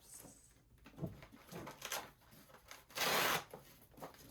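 Cardboard box packaging being handled during unboxing: light knocks and rustles, then a short loud rasping sound lasting about half a second, about three seconds in.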